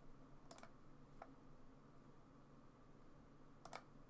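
Near silence with a few faint computer mouse clicks: a quick pair about half a second in and another pair near the end.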